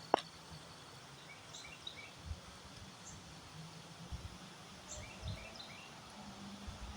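Quiet outdoor ambience: gusty wind bumping on the microphone in low rumbles every second or two, with faint, scattered bird chirps.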